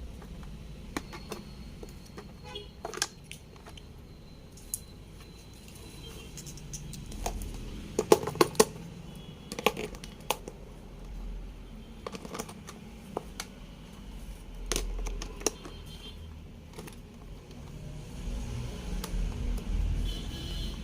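Scattered plastic clicks, taps and knocks from a toy drum being handled, with a cluster of louder sharp taps about eight seconds in.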